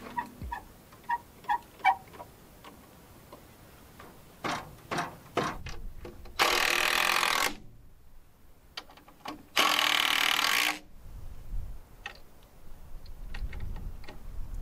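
Power drill driving screws into wood in two bursts of about a second each, with a third starting at the very end, and scattered clicks and knocks between them.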